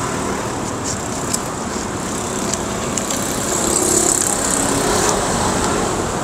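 Road traffic, a steady wash of passing vehicles, swelling slightly about halfway through as one passes closer.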